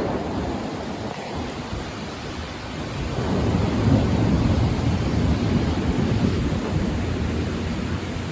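Heavy rain pouring down, with a low rumble of thunder building about three seconds in and slowly fading.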